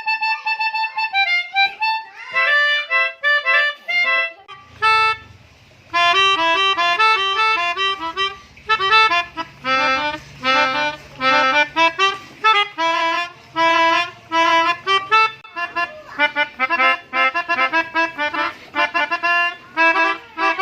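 Melodica (pianika) playing the 'telolet basuri' bus-horn tune as quick runs of short reedy notes stepping up and down. A low steady hum sits underneath through the middle of the passage.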